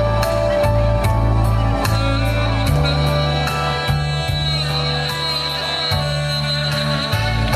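Saxophone playing a melody live over accompaniment with a steady bass line and a regular drum beat.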